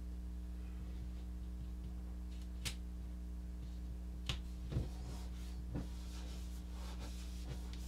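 A steady low electrical hum under a few light clicks and taps and some faint rustling, as stickers and a patch are handled and pressed onto a wooden wall.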